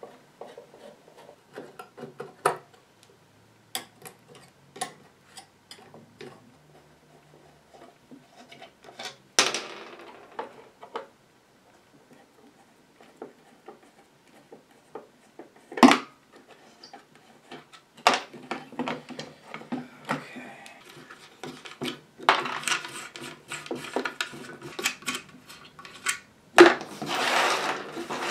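Screwdriver work taking small screws out of an antique amplifier's wooden cabinet to free the tube sockets: scattered light metal clicks and taps, with a few sharp knocks. Rubbing and scraping handling noise from the wooden case gets busier near the end.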